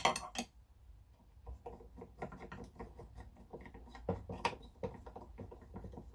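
Small clicks, taps and rattles of parts being handled and tightened on a new Makita angle grinder, most likely its wheel guard being clamped and adjusted. A sharp click comes right at the start and a few louder knocks about four seconds in.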